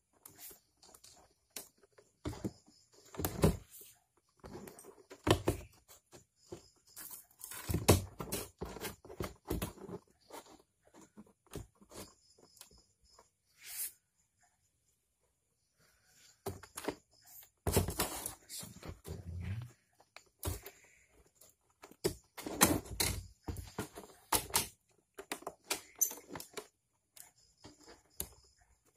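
Irregular clicks, knocks and rattles of hand tools and a circuit board being handled during soldering repair work on a TV's power board, in two bouts with a mostly quiet stretch in the middle.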